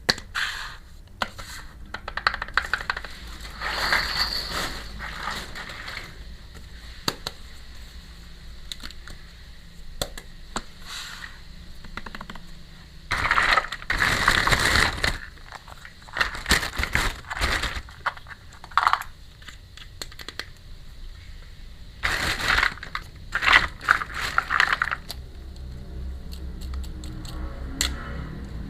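Small plastic toy pieces clicking and tapping as they are handled, with several bursts of plastic packaging crinkling, the loudest a couple of seconds long near the middle.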